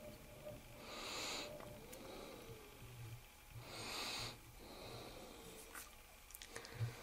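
A person's nasal breathing close to the microphone, two slow breaths about three seconds apart, with a few small clicks near the end.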